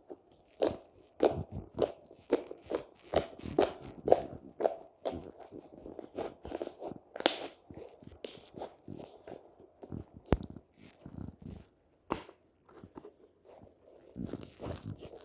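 White slime being squeezed and pressed by hand, giving an irregular run of crunchy, crackling clicks and squishes, with two sharper clicks about ten and twelve seconds in.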